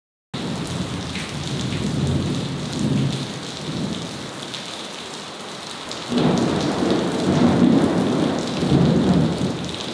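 Heavy rain pouring in a thunderstorm, with thunder rumbling; the thunder swells loudest from about six seconds in.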